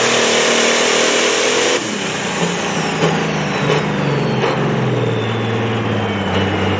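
Turbocharged diesel engine of a John Deere pulling tractor running at full throttle under load on the sled, then throttled back about two seconds in at the end of the pull. The engine drops to a low idle while the turbocharger's high whine falls away over the next few seconds, with a few short knocks in between.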